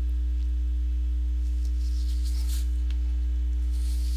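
Steady low electrical mains hum with fainter higher overtones, unchanging throughout.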